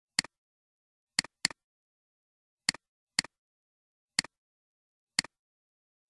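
Computer mouse button clicking seven times at uneven intervals, each a sharp press followed by a quieter release click, with dead silence between.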